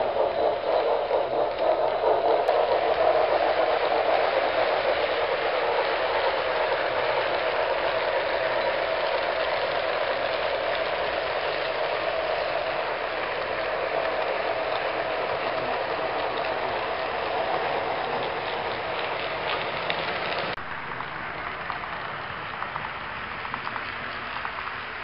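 HO scale model trains running on layout track: a steady whir and clicking of wheels rolling over the rails, slowly fading. About twenty seconds in it cuts abruptly to a quieter, sparser clicking of another model train passing.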